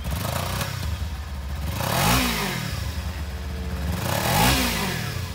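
Kawasaki Ninja 300's twin-cylinder engine idling, revved twice with quick blips of the throttle, about two seconds apart, each rising and falling back to idle.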